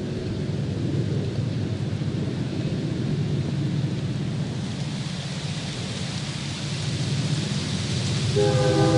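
Wind rushing through rustling leaves over a low rumble that grows louder as a train approaches. Near the end a train horn starts to sound, a steady chord of several notes.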